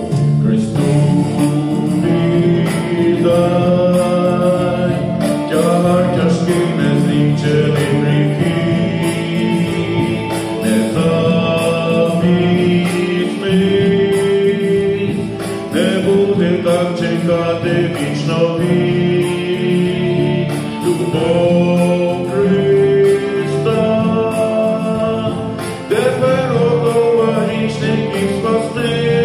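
Male vocal quartet singing a gospel hymn in close harmony through microphones, holding long notes that change every second or two.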